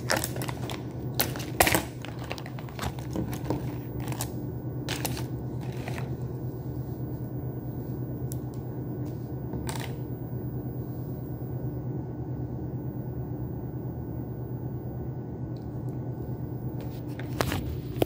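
Steady low electrical hum of the room, with scattered clicks and taps of small objects being handled, most of them in the first few seconds.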